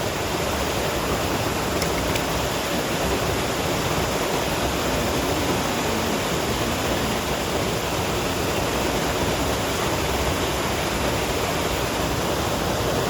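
Steady rush of creek water pouring over a spillway, an even, unbroken noise.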